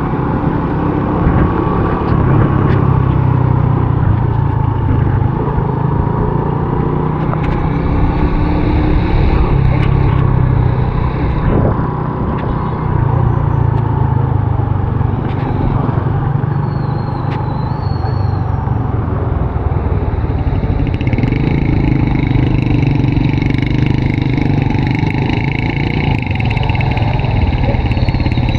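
Honda RSX 110's small single-cylinder four-stroke engine running at a steady cruise while riding, its note rising and falling slightly, under a continuous rushing noise.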